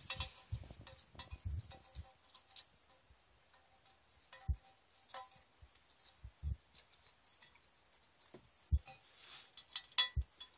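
Faint, scattered clicks and light metallic taps from a small tool and fingers working at a Mercedes 722.6 automatic transmission's aluminium valve body as a valve plunger and its spring are eased out of the bore. A few sharper clicks stand out in the second half.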